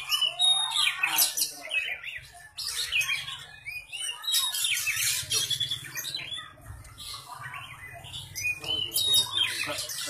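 Caged Oriental magpie-robin (kacer) singing a varied run of harsh chattering and quick whistled notes, typical of a kacer practising songs it has copied from other birds. The song comes in bursts with short pauses between them, over a steady low hum.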